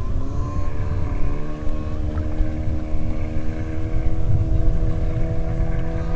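An engine droning, its pitch climbing during the first second and then holding steady, over a heavy low rumble.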